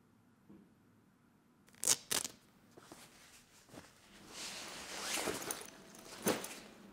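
A backpack being taken off and opened: two sharp clicks about two seconds in, then a stretch of fabric rustling and a zipper being drawn.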